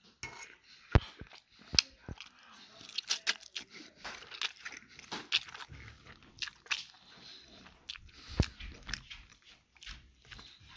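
A person chewing a mouthful of meatballs and pasta right at the microphone, with irregular sharp mouth clicks and smacks.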